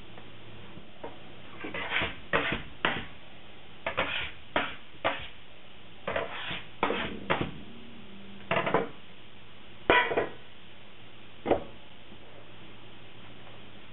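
A metal bench scraper scraping dough and flour off a wooden butcher-block bench, with clanks against a stainless steel mixing bowl. About a dozen short, irregular scrapes and knocks sound over a low steady hum, the loudest near the end.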